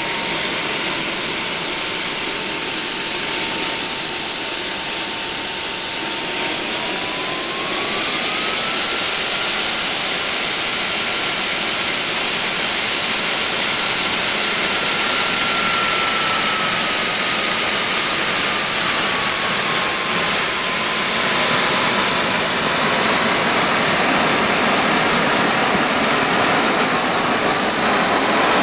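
Home-built turbojet engine with a centrifugal compressor and axial-flow turbine, burning kerosene, running loud: a steady rushing roar with a turbine whine. The whine rises in pitch about seven seconds in as the engine spools up, holds, then falls back around twenty seconds in as it spools down.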